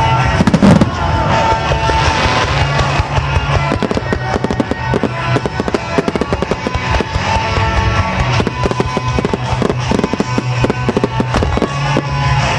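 Starmine fireworks going off over music: a heavy low boom about half a second in, then many shells bursting and crackling in quick succession while a pop song plays without a pause.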